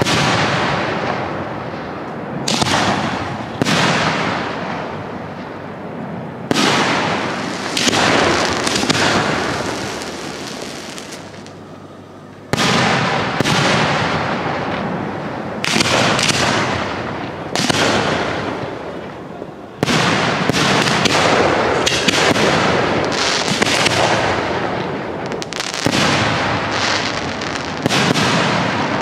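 1.3G display fireworks: aerial shells bursting overhead in quick succession, one sharp bang every second or two, each dying away before the next.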